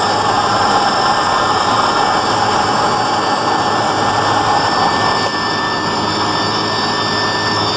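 Helicopter heard from inside its cabin: steady, loud engine and transmission noise with a high whine running through it.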